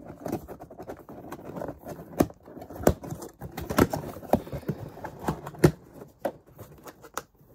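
Hands opening and handling a cardboard box: rustling with irregular sharp knocks and taps, a handful of them louder.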